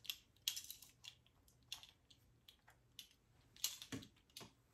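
Faint, scattered light clicks and taps as a ring of measuring spoons is handled and tapped against a mixing bowl while spices are measured out, with a small cluster of clicks near the end.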